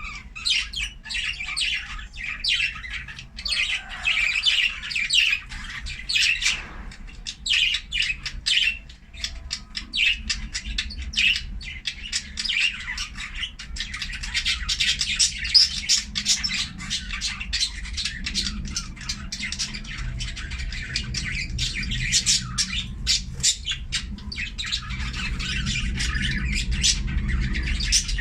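A pair of budgerigars chattering and chirping nonstop in quick runs of short, high calls. A steady low hum runs underneath and grows a little louder in the second half.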